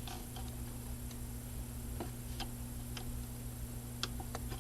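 Faint, irregular small clicks of a paper clip being worked against the battery springs of a toy alarm, over a low steady hum. The alarm's horn does not sound: its wire has come loose.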